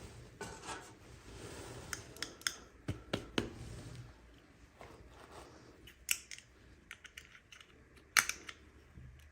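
Hands unboxing small toys: a scatter of short clicks and snips from plastic packaging, the loudest a little after eight seconds.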